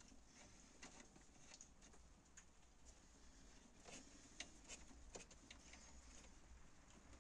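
Faint, irregular clicks and light metal-on-metal scraping of an Allen key turning in the bolts of a VW T4 1.9 TD's EGR valve.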